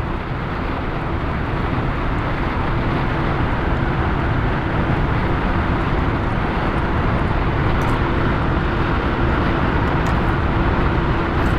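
Steady rumble inside a car's cabin, with a faint steady hum running through it, getting slightly louder over the first couple of seconds.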